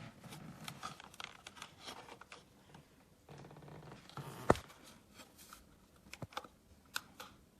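Scattered light clicks and taps from hands working the laptop stand and its power button, with one sharper click about four and a half seconds in.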